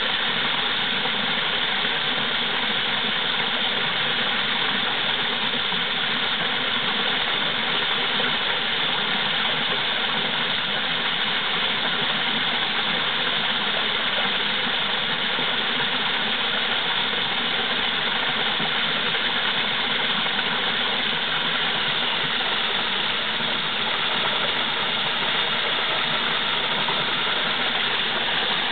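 Waterfall pouring, a continuous, even rush of falling water.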